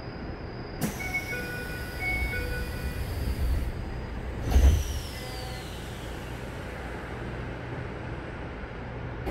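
Door-closing sequence of a Keisei 3100-series commuter train, heard from inside the car. About a second in, a hiss starts along with a chime of a few steady beeping tones. The sliding doors then shut with a low thud about four and a half seconds in.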